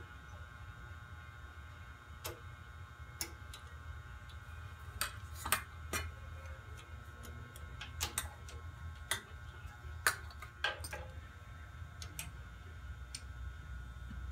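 Irregular metallic clicks and taps of hand tools on the governor arm and shaft of a Kohler K321 engine as the arm is refitted, over a steady low hum.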